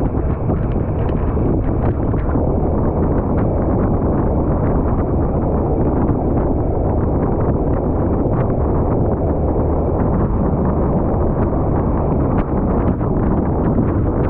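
Steady rush of wind and road noise from a motorcycle riding at road speed, the wind buffeting the microphone, with scattered small ticks.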